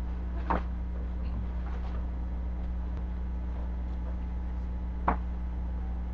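Steady low electrical hum, with two brief soft taps about half a second and about five seconds in, and faint rustling of Bible pages being handled while a verse is looked up.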